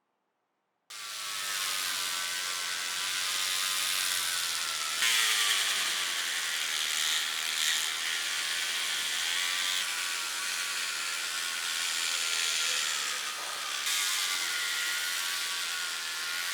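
Small handheld electric rotary tool running with a hissing grind. Its motor whine wavers in pitch as the bit presses against the work. The sound starts abruptly about a second in.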